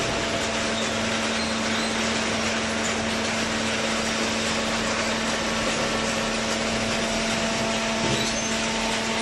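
Hydraulic cardboard baler running steadily: a constant machine hum with one held tone under broad mechanical noise.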